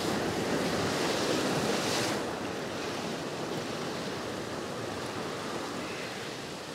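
Ocean waves breaking against a rock shelf. The crash is loudest for about the first two seconds, then eases into the steady wash of foaming water running back over the rocks.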